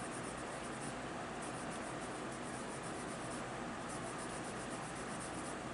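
Prismacolor colored pencil scratching softly on paper in steady shading strokes.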